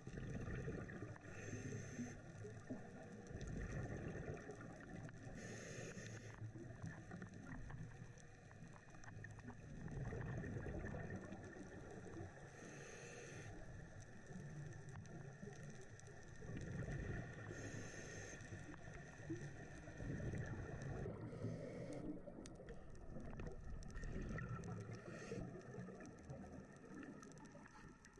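Scuba breathing through a regulator, heard underwater: a muffled low rumble with a hissing, bubbling surge every few seconds as air is drawn and exhaled.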